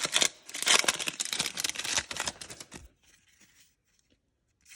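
Trading-card pack wrapper being torn open and crinkled, a dense crackling for a little under three seconds, then it goes quiet apart from faint rustling and a sharp click at the end.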